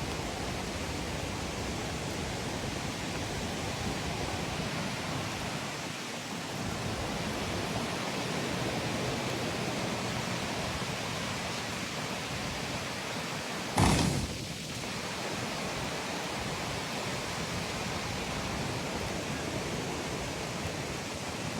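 Steady rushing noise of floodwater. A brief loud bump about fourteen seconds in.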